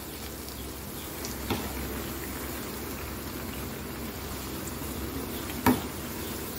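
Gram-flour fritters deep-frying in hot oil in a metal kadai, a steady sizzle. A slotted steel spoon knocks against the pan as the fritters are turned: a light tap about a second and a half in and a sharper knock near the end.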